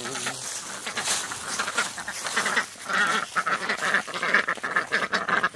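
Domestic hen ducks quacking in a rapid chatter that grows louder about two seconds in, as they crowd in at feeding time.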